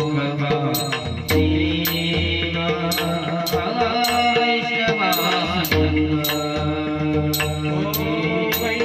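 Marathi devotional bhajan: voices singing over a steady held drone, with pakhawaj drum strokes and a regular, sharp percussion beat.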